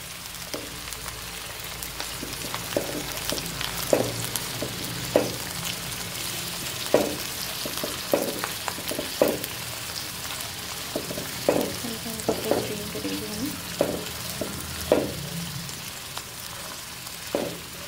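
Chopped vegetables sizzling in oil in a nonstick wok, stirred and tossed with a slotted spatula that knocks and scrapes against the pan about once a second over a steady sizzle.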